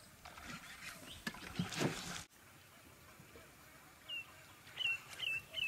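A brief rushing, splashy noise in the first two seconds, then an animal calling near the end: five short, high chirps in quick succession, each falling in pitch.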